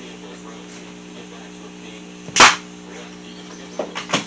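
Staple gun firing once, a single sharp shot driving a staple into a fence-picket planter leg, with two lighter clicks near the end. A steady low hum runs underneath.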